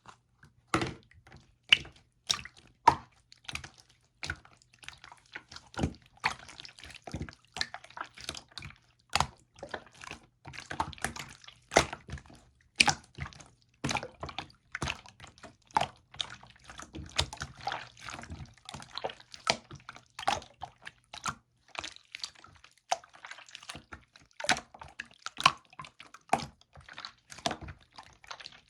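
Blue slime being squeezed and pressed by hand, giving an irregular run of wet clicks and pops, several a second.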